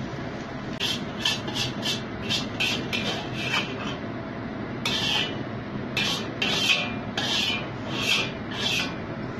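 Metal wok spatula scraping across the inside of a wok as the finished fried rice vermicelli is scooped out onto a plate. It starts as a quick run of short rasping scrapes, several a second, then turns to fewer, longer scrapes from about five seconds in.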